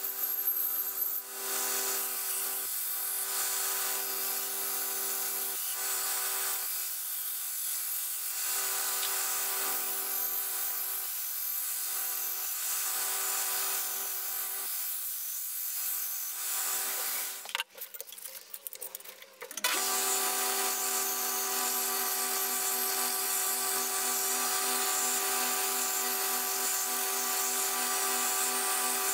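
Belt grinder running, its abrasive belt grinding the steel head of a hatchet: a steady motor tone under a high-pitched grinding hiss. The sound drops away briefly about two-thirds of the way through, then carries on as before.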